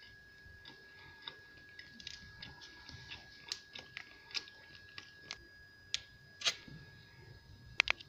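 Close-up chewing of a chocolate-coated, dulce de leche-filled pastry horn: scattered small wet clicks and crackles from the mouth, growing busier after about two seconds, with two sharp clicks close together near the end.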